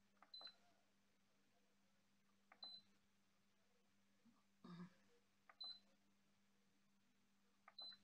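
Control-panel button presses on a White Whale DWA-0602S countertop dishwasher, four times, each a soft click followed by a short high beep as the programme selection steps on. There is a soft thump about halfway through.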